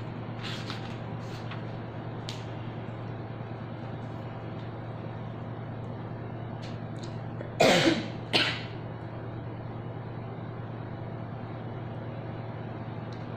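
A person coughing twice in quick succession, about halfway through, over a steady low hum.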